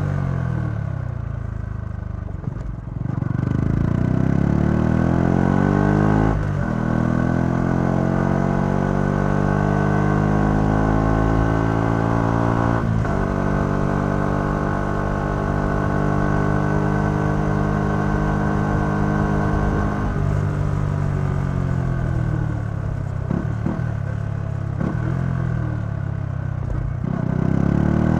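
Yamaha XSR 125's single-cylinder four-stroke engine through its stock exhaust, heard from the rider's seat. The revs drop at first, then the bike pulls hard through two upshifts, each a sudden drop in pitch. It holds speed, then slows on engine braking with a few short blips, and picks up revs again near the end.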